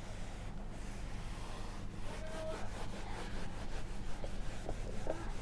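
Whiteboard duster rubbing across a whiteboard, erasing writing in short wiping strokes that grow busier about two seconds in, over a low steady hum.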